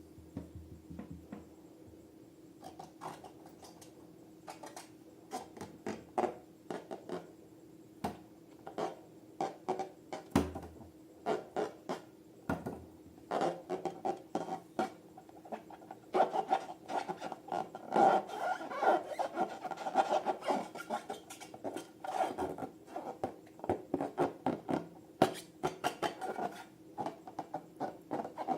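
Slime being worked by hand or in a bowl: a run of irregular sticky clicks and crackles, sparse at first and much denser from about halfway through.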